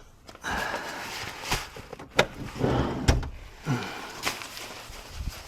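Irregular knocks and clicks with rustling, from hands and parts being handled inside a car's cabin as its interior is taken apart.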